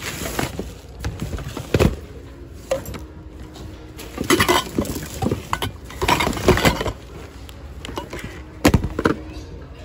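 Plastic bags and fabric rustling in irregular bursts as thrifted items are shifted around, with a few sharp knocks of hard objects bumping together.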